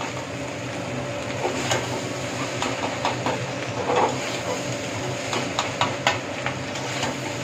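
Metal spatula scraping and knocking against a metal pan, irregular clicks and clatters as fried rice is stirred from the bottom, over a steady low hum.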